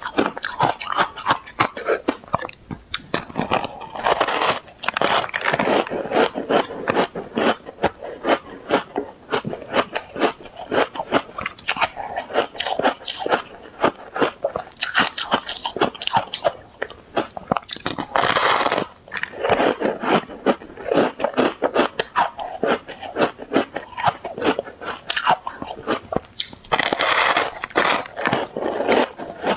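Ice being bitten and crunched between the teeth close to the microphone: a continuous run of sharp, irregular crunches and cracks with short breaks between bites.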